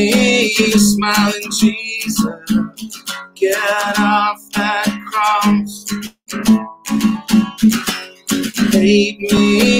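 Acoustic guitar strummed in a steady rhythm, with a man singing over it in long held lines.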